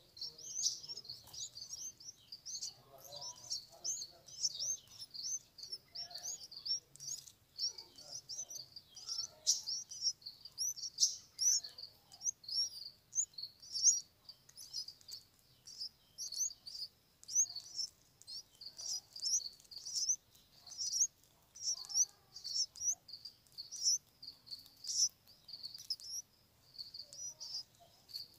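Red-vented bulbul nestlings begging to be fed: a continuous string of short, high-pitched chirps, about two a second.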